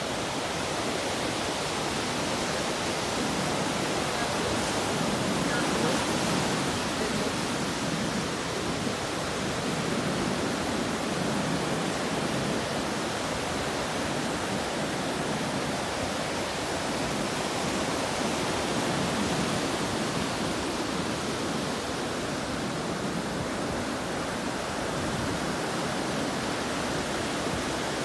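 Ocean surf breaking and washing up the sand: a steady rushing wash that swells slightly about five seconds in and again past the middle.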